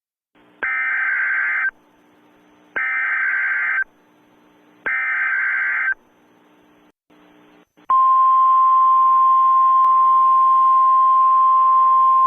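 Emergency Alert System tones: three short, harsh digital header bursts about a second each, a second apart, over a faint hiss. About eight seconds in, a single steady, loud attention tone starts and holds.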